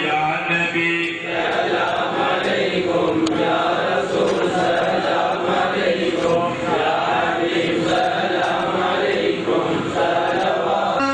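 Islamic devotional chanting in praise of the Prophet (madh): one voice holds a sung note for about the first second, then many voices chant together in a dense, slowly swelling and falling mass.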